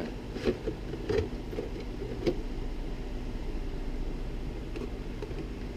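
Steady low hum and hiss of room tone, with a few faint light knocks in the first couple of seconds as a hard-plastic RC truck body is handled and turned over.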